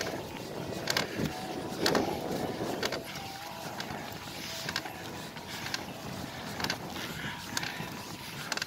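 Mountain bike being ridden uphill over rough ground: a steady rattle and creak from the bike, with sharp irregular clicks about once a second and a louder rattle about two seconds in.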